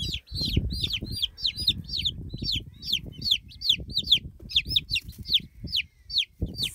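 Baby meat chicks peeping continuously: a rapid string of high, short cheeps, each falling in pitch, about four or five a second. A low rumbling noise runs underneath.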